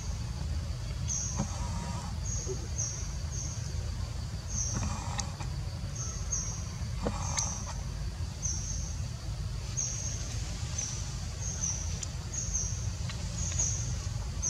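A regular series of short, high, slightly falling chirps, about one a second, over a steady low rumble, with a couple of faint knocks midway.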